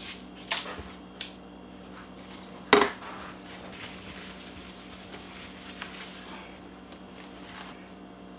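A few light knocks and clatters on a kitchen countertop, the loudest about three seconds in, then a hand sweeping across the countertop for a couple of seconds, over a low steady hum.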